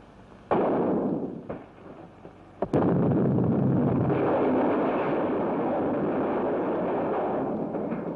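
Dynamite blowing up a mine tunnel, as an early sound-film effect: a sudden bang about half a second in that dies away quickly, then a bigger blast near three seconds whose noise carries on and slowly fades.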